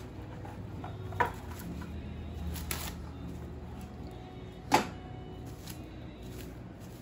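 Plastic wrap pulled from its cardboard box and torn off on the cutter edge: crinkling with a few sharp clicks and knocks, the loudest about two-thirds of the way through.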